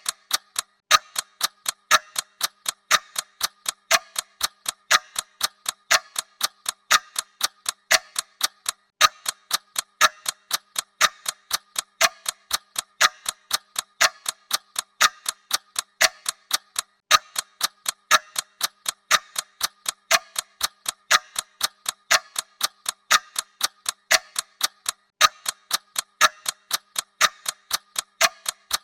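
Clock ticking sound effect: a steady, even tick-tock of sharp mechanical clicks.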